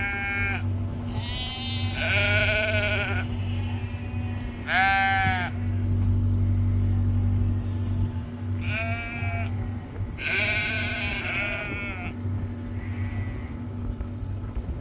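Sheep bleating, about six calls spread through, some of them overlapping from several animals at once.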